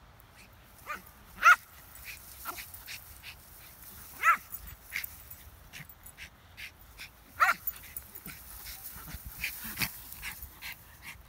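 Schipperke giving short high-pitched barks, three loud ones a few seconds apart and a few fainter ones, with light rustling and clicking between them.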